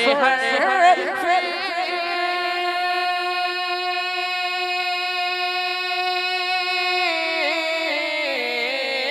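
A man singing a naat unaccompanied into a microphone. He wavers through ornamented turns, then holds one long steady high note for about five seconds, then steps down in pitch near the end.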